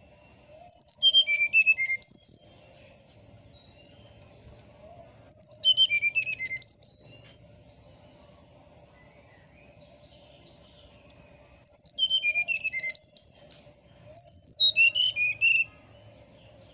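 Brown-chested jungle flycatcher (sikatan rimba dada coklat) singing: four loud bursts of song, each a rapid string of notes falling in pitch, run twice in quick succession.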